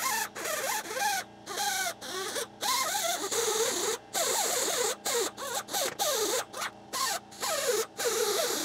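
Die grinder with a small abrasive wheel grinding down the weld on a cast iron steady rest, its whine sliding up and down as the wheel bites, in short runs broken off abruptly several times.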